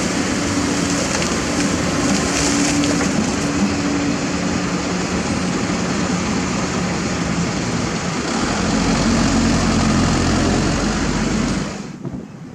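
Diesel engine of heavy earthmoving machinery running steadily. About two-thirds of the way through it gets louder, with a deeper rumble. It drops away suddenly near the end.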